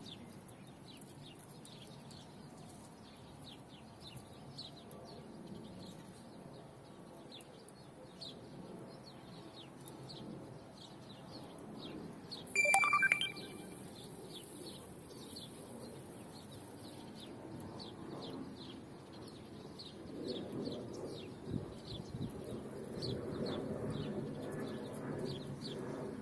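Pet lovebird and budgerigar chirping in short, high, quick notes, several a second, with no let-up. About halfway through comes one loud, shrill call that sweeps upward. Louder, lower sounds come in over the last few seconds.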